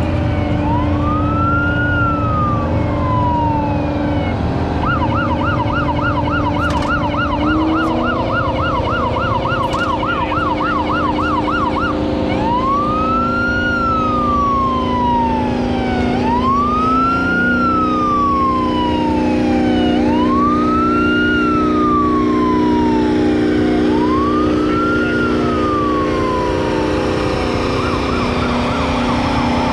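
A siren sounding in a slow rising-and-falling wail, switching to a fast yelp for about seven seconds, then back to the wail. Underneath, a tractor engine runs steadily, its pitch shifting a few times.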